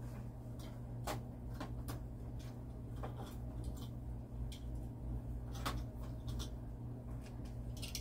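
Low steady hum of a small motorized display turntable turning, with a scattering of faint, irregular clicks and ticks.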